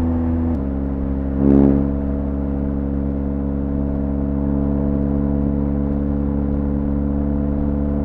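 BMW R1200GS Adventure's boxer-twin engine through an Akrapovic exhaust, cruising at steady motorway speed with a constant drone. Its note steps down slightly about half a second in, and a short rush of noise swells and fades about a second and a half in.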